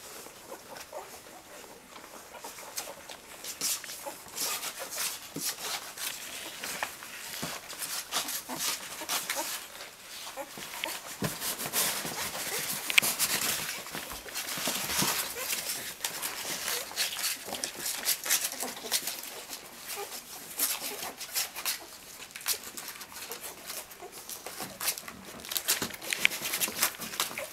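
A mother dog and her young puppies: an irregular, dense patter of wet licking and nursing smacks and clicks, with small rustles.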